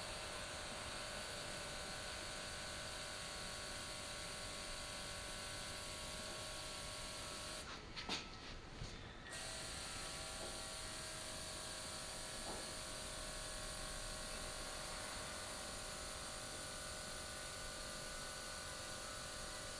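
Small airbrush compressor motor running steadily with a hiss of air, broken off briefly about eight seconds in by a few clicks.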